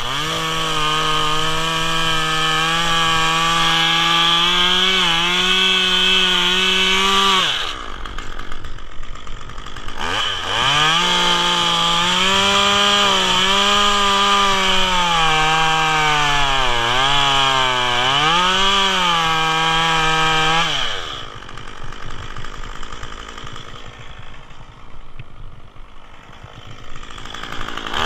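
Stihl two-stroke chainsaw cutting into a eucalyptus trunk at full throttle, cutting the wedge-shaped notch for the next piece. It makes two long cuts, of about seven and ten seconds, and its pitch sags and recovers as the chain bogs in the wood during the second. Between and after the cuts it drops back to idle.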